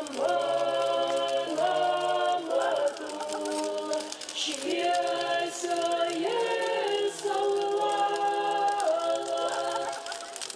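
Unaccompanied choir singing long held notes that move together in steps from one chord to the next.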